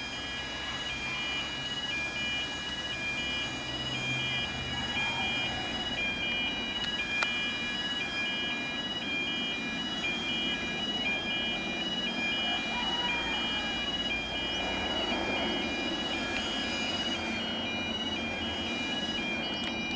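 An electronic railway crossing warning alarm sounds continuously, alternating steadily between two high tones. Under it the rumble of an approaching NSW Endeavour diesel railcar grows over the second half.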